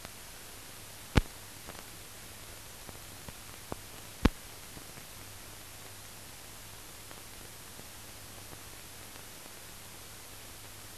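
Steady hiss with a faint low hum and a few sharp clicks, two louder ones about a second and four seconds in: the bare noise of a silent film's transfer, with no recorded sound.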